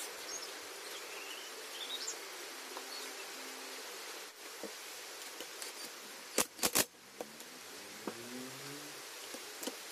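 Metal parts of a brush cutter's clutch being handled and fitted, with three sharp clicks close together about six and a half seconds in, over a faint steady background hiss.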